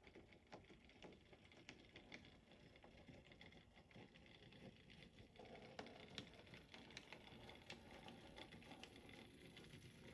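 Near silence with faint ticks: an OO gauge model shunting locomotive and flat wagon running along the track, its small motor a faint hum from about halfway through.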